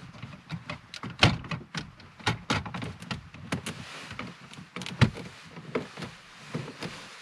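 Irregular plastic knocks and clicks as the radio unit and its fascia surround are pressed and seated into a Ford Mondeo mk4's centre dashboard by hand, the sharpest about a second in and again about five seconds in.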